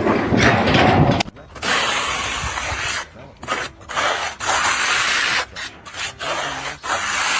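Repeated scraping or rubbing strokes, each lasting about half a second to a second and a half, with short breaks between them.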